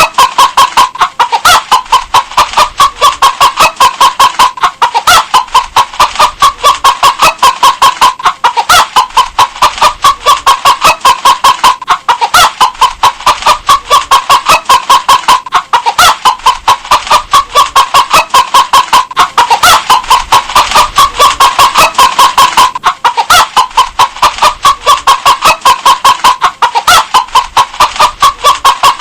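Hens clucking in a rapid, steady series of short calls, about four a second.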